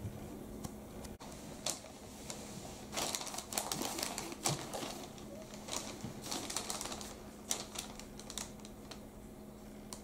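Brown-eared bulbul pecking into an apple: irregular runs of small quick taps and clicks, busiest from about three to eight and a half seconds in.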